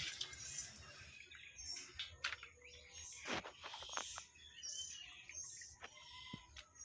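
Small birds chirping repeatedly in short high calls, with a few sharp clicks or taps in between.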